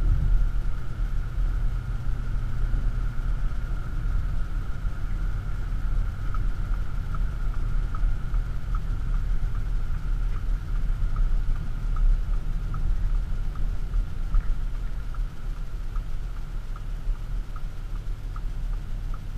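Audi SQ7's 4.0 TDI V8 diesel and road noise heard from inside the cabin as the SUV slows down from motorway speed: a steady low rumble. A light, regular ticking, a little over one tick a second, starts about six seconds in.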